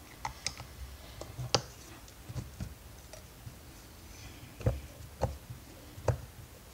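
Irregular light clicks and knocks of a screwdriver and metal parts as screws are worked out of a vacuum cleaner motor housing.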